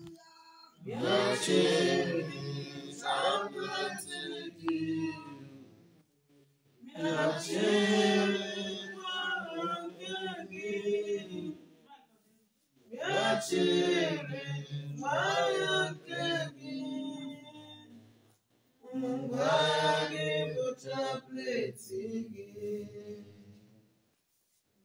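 A group of voices singing together in four phrases of about five seconds each, with short pauses between the phrases.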